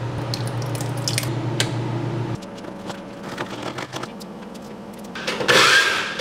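Wet squishing and small clicks as raw chicken breasts are handled, then an electric mini food chopper, its lid pressed down to run it, chopping cauliflower into rice in one loud burst of about a second near the end.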